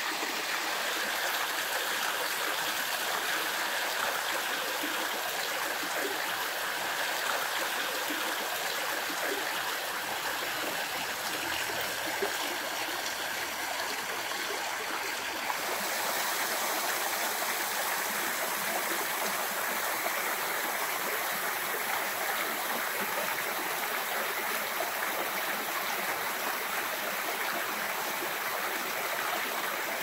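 Water cascading over a low rock ledge into a shallow, stony stream: a steady rushing and splashing. About halfway through it turns slightly hissier.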